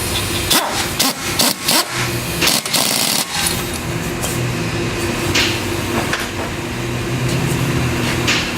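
Pneumatic impact wrench fired in several short bursts during the first three seconds or so, over a steady machine hum.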